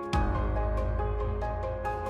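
Background music: a gentle tune of short ringing notes, with a deep bass note coming in just after the start and dying away near the end.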